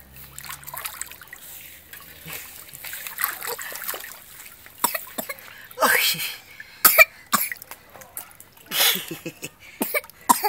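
Pool water splashing and trickling as a baby is moved through it, then several short, loud coughs in the second half.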